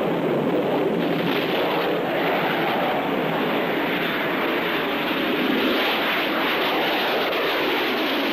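Aircraft engine noise: a steady, dense rush with faint sliding tones running through it.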